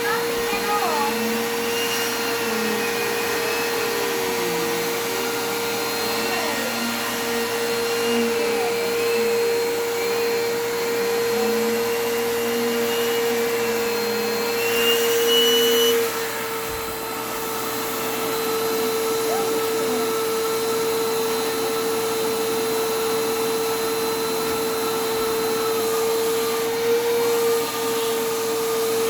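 Hoover WindTunnel vacuum cleaner running with a steady motor whine. Its pitch wavers for the first half, then it settles to a steadier hum about halfway through.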